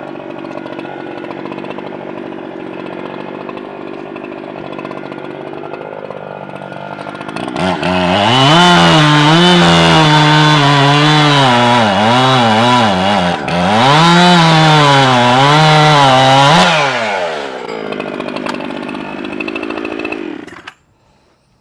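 Echo CS-7310P two-stroke chainsaw idling, then revved to full throttle about 7 seconds in, its pitch dipping and recovering repeatedly as it cuts wood. After about nine seconds it drops back to idle and is shut off near the end.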